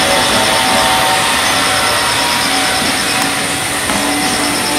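Container freight train rolling past: a loud, steady rush of steel wheels on the rails, with a few thin whining tones running through it.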